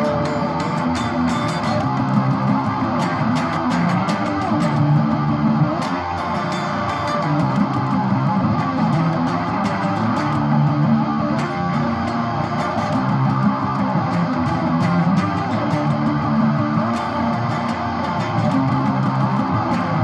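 Instrumental break of a song: guitars with bass playing steadily, no singing.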